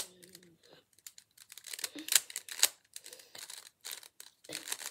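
Layers of a stiff, unbranded plastic 3x3 Rubik's cube being twisted by hand: a run of irregular clicks and scraping, loudest about two seconds in. The scraping comes from the cube's inner lining rubbing as the layers turn.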